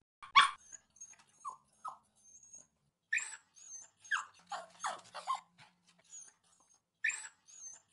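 A dog whimpering and yipping in short cries that fall in pitch, scattered irregularly with quiet gaps between. The loudest cry comes about half a second in.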